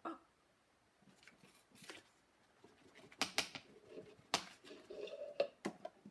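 A paper plate fanned at plastic cups on a wooden table edge: a handful of sharp clicks and taps as the plate and cups knock against the table, the loudest a little after three seconds and just past four, with a few lighter ones near the end.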